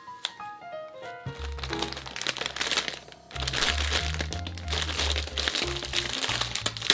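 Light background music, with thin plastic packaging crinkling as it is handled and torn open, in two stretches from about a second and a half in.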